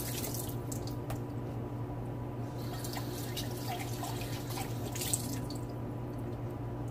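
A pot of stew simmering on a gas stove, small bubbling pops and drips over a steady low hum.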